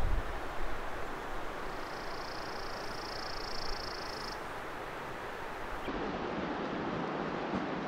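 Steady rushing outdoor ambience, like wind in the trees, with a high, steady buzz for about two and a half seconds in the middle. Near the end the rush changes abruptly and sounds fuller.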